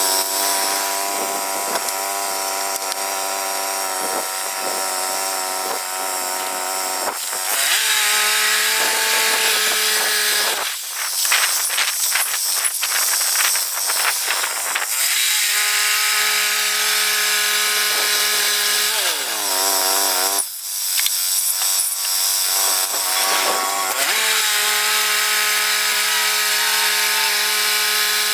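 Portable band sawmill's gas engine running at speed as the blade saws through a red cedar log, the engine pitch shifting several times and a stretch of louder, rougher sawing noise in the middle.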